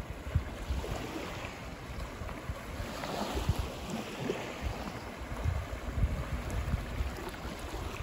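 Surf washing onto a beach, with wind gusting on the microphone in low, irregular rumbles.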